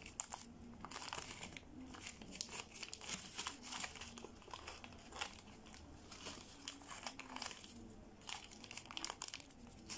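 Plastic ribbon crinkling and rustling faintly in irregular little crackles as it is wound by hand around a bouquet's wire stem.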